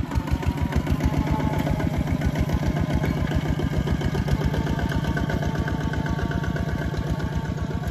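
Two-wheel walking tractor's single-cylinder diesel engine chugging steadily under load as it pulls a plough through wet soil.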